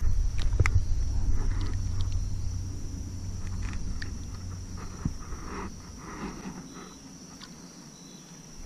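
Small water splashes and sloshing as a largemouth bass is released by hand over the side of a kayak, over a low rumble that is loudest at the start and fades away. A steady high insect drone runs underneath.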